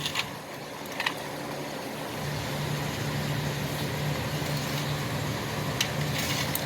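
Steady low hum, a little stronger from about two seconds in, with a few light clicks and taps as a hex key set's metal stand is handled and turned.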